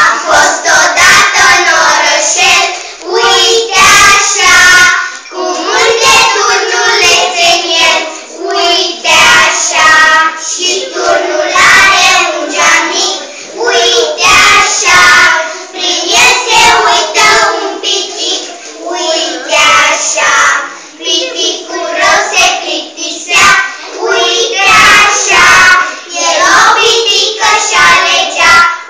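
A group of young children singing a song together, loud and steady, with frequent sharp taps throughout.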